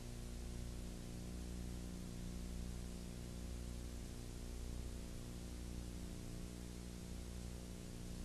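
Steady low electrical hum with a row of even overtones, over a constant hiss, and no other sound: the background noise of a transfer of silent old film.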